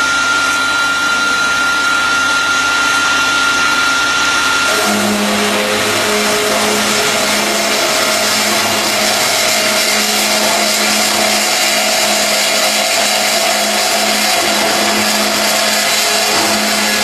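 CNC cutting machine running with a steady, loud whirring. About five seconds in the sound changes: a high whine stops and a lower hum sets in.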